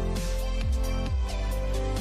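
Electronic background music with a steady beat and deep bass notes that slide downward in pitch.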